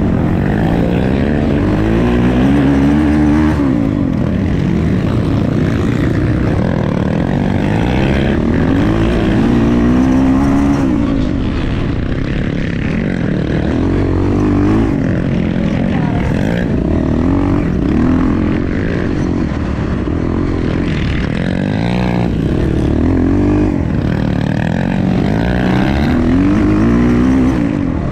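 Honda Tornado dirt bike's single-cylinder four-stroke engine under way, revving up and dropping back again and again, about every three to six seconds, as it accelerates and backs off.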